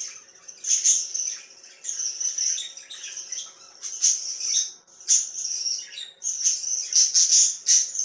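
Budgerigars chirping and squawking in quick, raspy, high-pitched bursts, several a second, with short pauses between runs.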